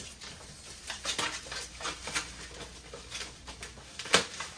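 Cardboard and plastic packaging of a Funko Pop box rustling and crinkling as it is pulled out and handled. There is a sharper knock about four seconds in.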